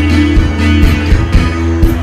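Live music: a steady didgeridoo drone under guitar, with a drum beat about twice a second.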